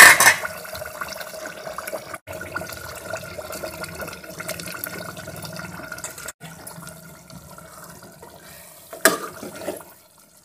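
A metal plate lid clatters as it comes off an aluminium pot of simmering curry, then steady bubbling with wet plops as handfuls of small fish are dropped into the gravy. A spoon knocks against the pot near the end.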